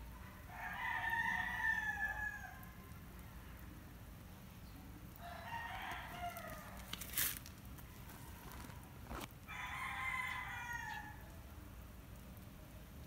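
Rooster crowing three times, each crow a second or two long and about four seconds apart, with one sharp click about seven seconds in.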